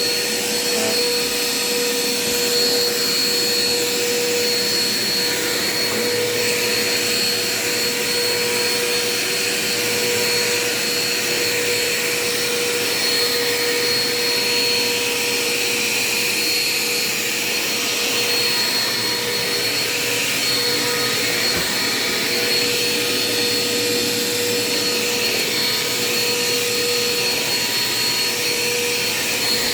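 Dirt Devil Quick Power bagless upright vacuum running steadily as it is pushed over a hard kitchen floor, its motor giving a constant whine over the rush of air.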